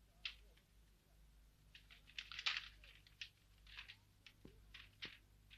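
Faint paper rustling as a folded letter is handled and opened out, in a series of short crackles that come thickest around the middle.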